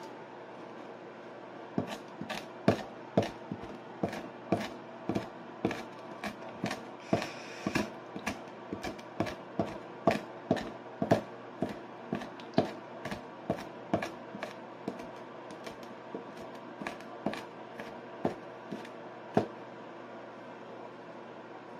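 Kitchen knife chopping garlic on a wooden cutting board: sharp knocks of the blade against the board, roughly two a second. They start about two seconds in and stop a couple of seconds before the end.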